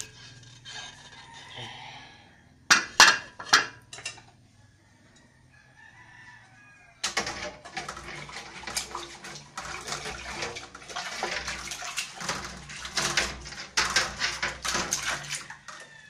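Water splashing and sloshing in a stainless steel basin of soapy water as dishes and a pot are rinsed by hand, starting about seven seconds in and going on without a break. About three seconds in, a loud short burst of sound stands out.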